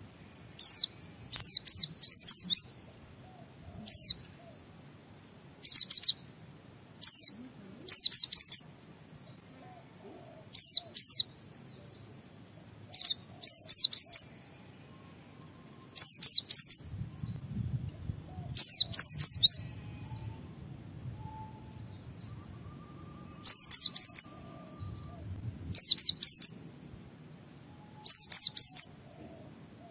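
White-eye (pleci) singing its ngalas song: short, loud bursts of high, rapid twittering notes with quick falling sweeps, repeated every second or two.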